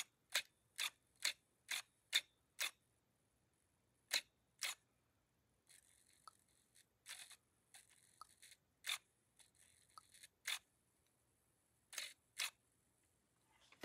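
Sharp clicks from the throttle linkage of a twin-engine nitro RC car being worked by hand: a quick run of about seven, roughly two a second, then a few more spaced out with fainter ticks between.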